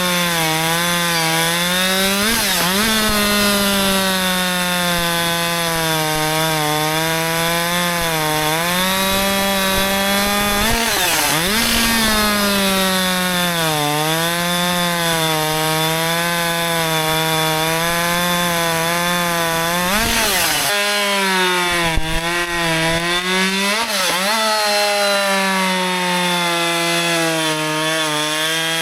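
Husqvarna 564 XP two-stroke chainsaw running at high revs while cutting wood, its engine note wavering under load. There are brief sharp swings in pitch about two and a half, eleven, twenty and twenty-four seconds in.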